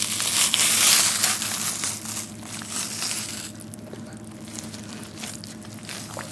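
A whole head of napa cabbage kimchi being pulled apart by gloved hands: the wet cabbage leaves crackle and tear. It is loudest in the first three seconds or so, then turns to softer, scattered crackles.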